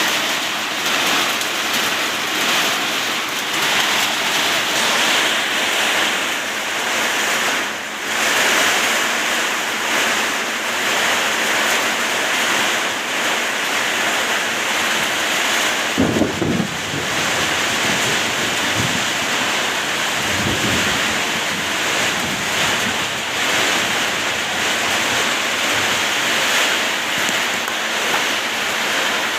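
Heavy rain and hail pouring down in strong wind, a loud steady hiss. About 16 seconds in, a low rumble comes in and fades over a few seconds.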